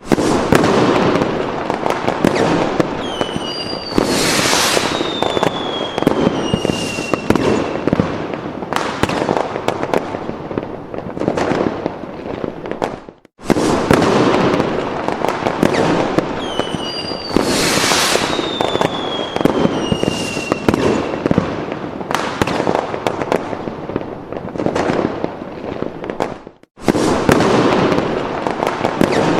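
Fireworks sound effect: a dense run of bangs and crackling, with whistling rockets falling in pitch. The same stretch loops about every 13 seconds, with a brief cut at each repeat.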